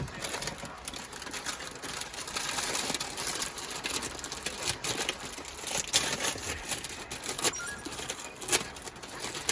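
Rain drumming on a van's metal roof: dense, irregular patter with a few louder drops now and then.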